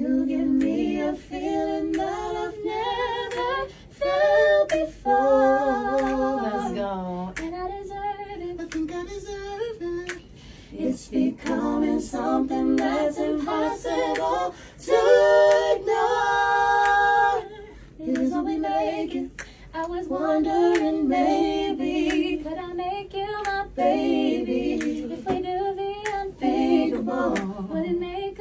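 Several voices, women's among them, singing together in unaccompanied harmony, with short sharp clicks scattered through.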